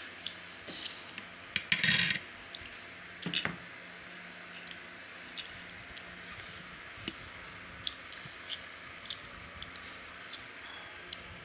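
Eating by hand from steel plates: fingers mixing rice and curry with small clicks and squelches against the metal. About two seconds in, and again a little later, a louder short clatter of steel dishware.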